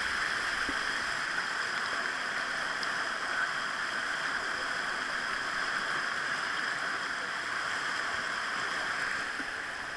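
Mountain creek rushing over a rocky cascade: a steady, unbroken rush of whitewater.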